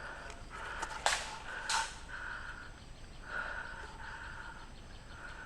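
Outdoor ambience with an animal call repeating in short, half-second pulses, and two sharp cracks, one a little after a second in and one just before two seconds.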